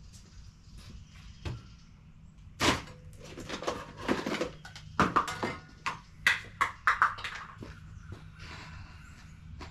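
Knocks and clatter of hard objects being handled and set down: one sharp knock about two and a half seconds in, then a quick run of knocks and taps, loudest between five and seven seconds in.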